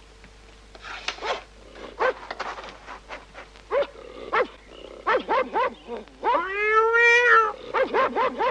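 A small dog yapping in quick runs of short yelps, with one long drawn-out howl about two-thirds of the way through.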